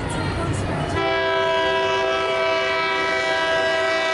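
A passing Tri-Rail passenger train's air horn, a steady multi-note chord that sounds suddenly about a second in and is held through the rest. Before it starts, the low rumble of the train is heard.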